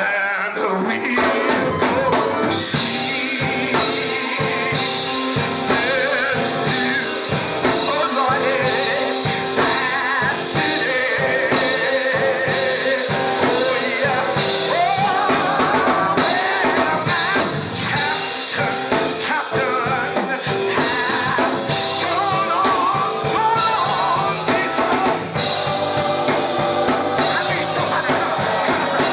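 Live church music: a lead singer on a microphone and a robed choir singing over a drum kit keeping a steady beat.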